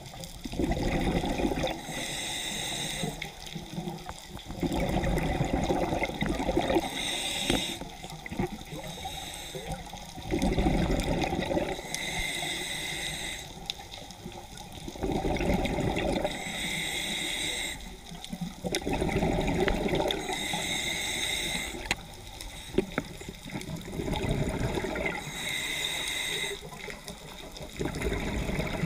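Scuba diver breathing through a demand regulator underwater: a short hissing inhale, then a longer bubbling exhale. About six breaths come in a steady cycle, roughly four to five seconds apart.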